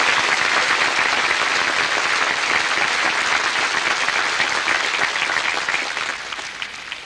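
A large crowd applauding, the applause dying away over the last couple of seconds.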